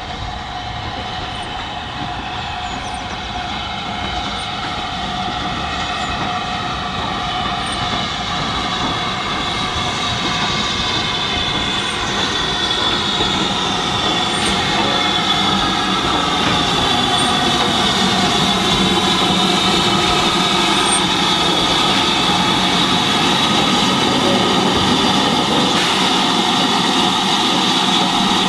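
SR U class 2-6-0 steam locomotive running slowly in towards the listener and growing steadily louder, with a steady high squeal and the hiss of steam as it comes alongside.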